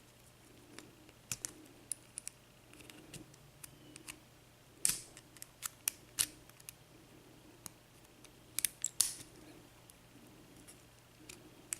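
Small metal tools clicking and scraping against a brass Euro cylinder lock as it is worked apart by hand: irregular sharp clicks, with the loudest clusters about five seconds in and again near nine seconds.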